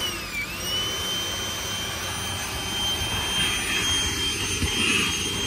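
Milwaukee vacuum cleaner running with a steady high whine, sucking up debris from a nest. Its pitch dips briefly and recovers about half a second in.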